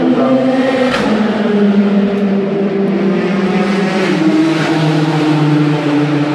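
Race car engines running on the circuit: a loud, continuous drone whose pitch slides slowly downward over several seconds. A sharp click sounds about a second in.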